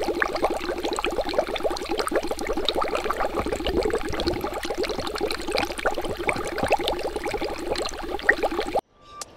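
Rapid bubbling of liquid: a dense run of small, quick pops and gurgles that cuts off suddenly near the end.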